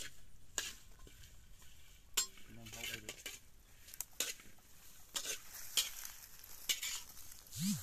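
Metal spatula scraping and stirring vegetables in a metal wok over a wood fire, a dozen or so short irregular scrapes, with a low frying sizzle between the strokes.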